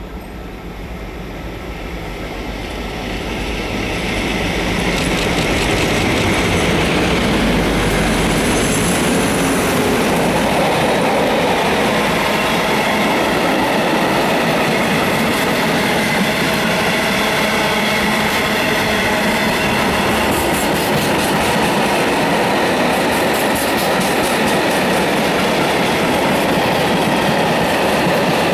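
Colas Rail Class 56 diesel locomotive, with its Ruston-Paxman V16 engine, drawing closer and growing louder over the first few seconds. A long rake of sheeted steel wagons then rolls past steadily, with repeated wheel clicks on the rails.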